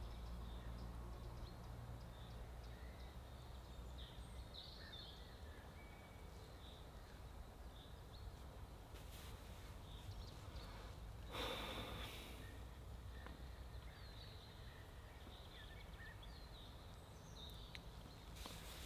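Faint outdoor ambience at the water: a low steady rumble with scattered faint bird chirps, and a short breathy rustle about eleven and a half seconds in.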